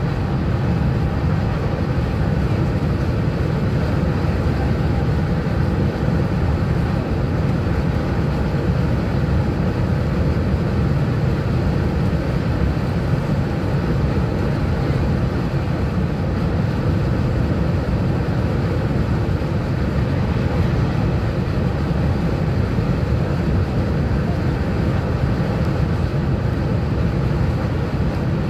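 Steady low rumble of a TGV high-speed train running at speed, heard from inside the passenger cabin, with no change in level throughout.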